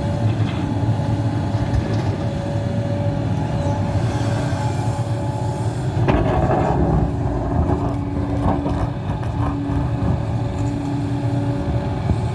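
Hidromek HMK 390LC excavator working under load: a steady diesel engine hum with a high hydraulic whine, whose tone shifts about six seconds in along with a brief rush of noise.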